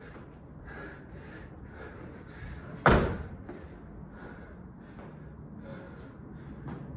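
Hard, rapid panting of an athlete mid-workout, about two breaths a second, with one loud heavy thud about three seconds in.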